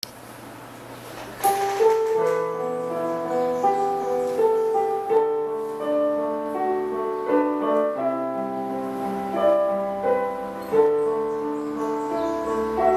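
Yamaha digital piano played solo, a melody over chords, starting about a second and a half in.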